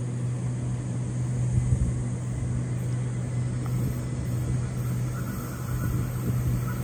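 Sydney Trains Waratah double-deck electric train standing at the platform, its onboard equipment giving off a steady low hum. A faint higher tone joins it about five seconds in.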